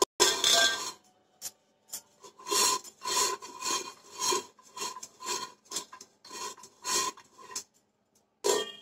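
Oil being rubbed around the inside of an electric cooker's metal inner pan by hand: rhythmic rubbing strokes about two to three a second, with a faint ring from the pan, and one louder scrape near the end.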